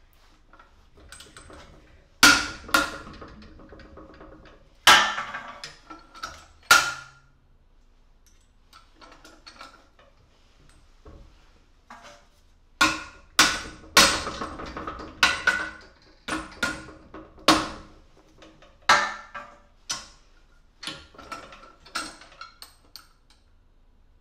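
Sharp metal clanks and knocks with a brief ringing after each, irregular and in two clusters with a quieter pause between, as a carbon-steel stem is worked and bent in a cast bench vise.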